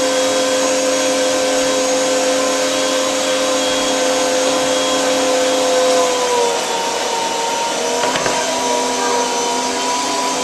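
Arçelik K 1766 1400 W electric meat grinder running with a steady motor hum, its pitch dropping slightly about six seconds in.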